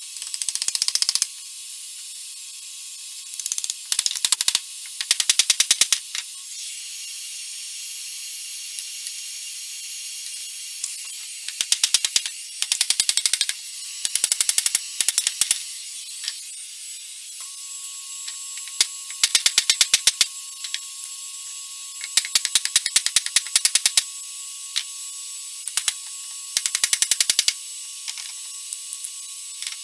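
Handheld electric heat gun blowing steadily, a high hiss with a thin steady whine from its fan, used to soften old glue in a chair joint. About eight bursts of rapid clicking, each lasting up to a second or so, cut in over the hiss and are the loudest sounds.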